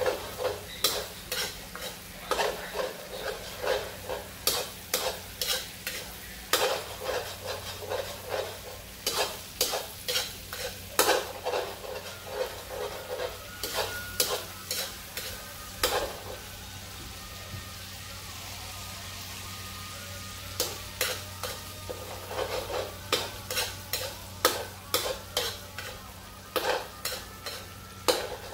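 Metal spatula scraping and knocking against a steel wok, about two strokes a second, while a paste fries in oil with a steady sizzle. A little past halfway the stirring stops for about four seconds, leaving only the sizzle, then starts again.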